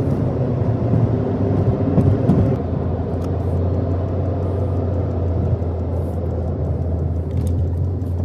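Steady low engine and road rumble of a car being driven, heard from inside the cabin.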